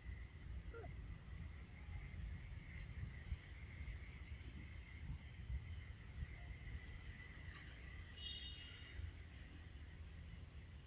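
Faint outdoor ambience: a steady high-pitched insect drone over a low, uneven rumble.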